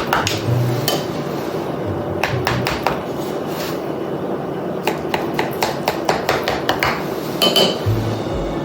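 Knife tips repeatedly clicking and tapping against a metal baking pan while a design is scored into a tray of raw kibbeh, in many irregular sharp ticks.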